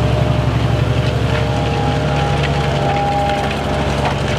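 Fendt 1050 Vario tractor's six-cylinder diesel engine running steadily under load as it pulls a Farmet Softer 11 disc harrow, with the harrow's discs scraping and cutting through the soil.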